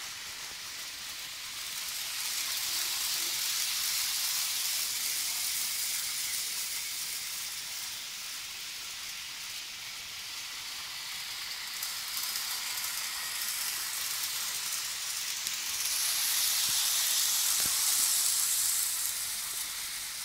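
N-scale model trains running on the layout's track: a steady high-pitched whirring hiss of wheels on rails and small motors, swelling twice as a train passes close.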